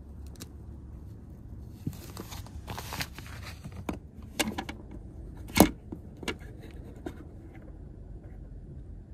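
Handling noises inside a car: fabric rustling and scattered clicks and knocks as a mesh window curtain is pulled aside, with one sharp knock about five and a half seconds in.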